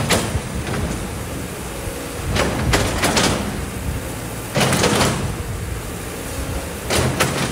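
Kobelco hydraulic excavator's diesel engine running steadily under load while its bucket scrapes and digs through sand and stones, in four bursts of scraping and rattling.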